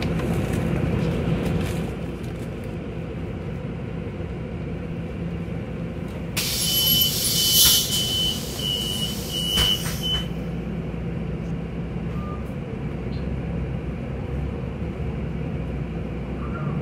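Solaris Urbino 12 III city bus's diesel engine idling steadily, heard from on board. About six seconds in, a loud hiss of compressed air with a high, interrupted beeping runs for about four seconds, typical of the pneumatic doors closing with their warning signal.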